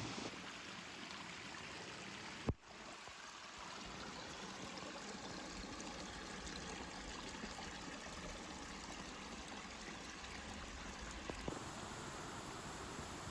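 Steady rush of falling and flowing water from a waterfall, with a single sharp click about two and a half seconds in.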